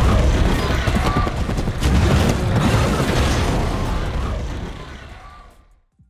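Loud action-film sound effects: a deep rumble with rapid crackling like a blast or gunfire, fading away over the last two seconds.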